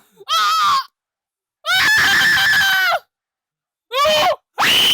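Four high-pitched screams with silent gaps between them: a short wavering cry, a long held scream, another short cry, and a long high scream starting near the end.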